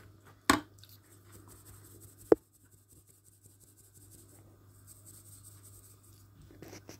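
Spatula scraping and rubbing through dry gram flour and chopped vegetables in a mixing bowl, faint and steady, with a short knock about half a second in and a sharp tap against the bowl a little after two seconds.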